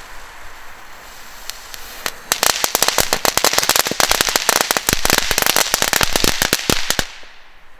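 Category 1 crackling ribbons (knetterlint) laid on top of each other going off: a couple of single pops, then a dense run of rapid small cracks starting about two seconds in and lasting about five seconds, stopping suddenly.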